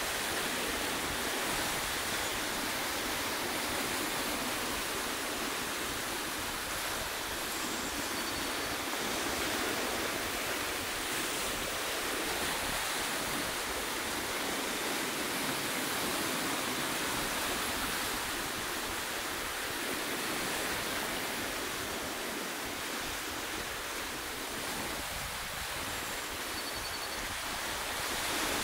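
Ocean surf washing and breaking over a rocky shoreline: a steady rushing wash that swells and eases gently every few seconds.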